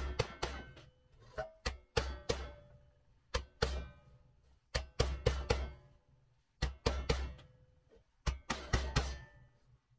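Pressed-steel toy airplane wing being tapped with a mallet on a leather sandbag: bunches of several quick strikes about every second and a half, each strike a dull thud with a short metallic ring.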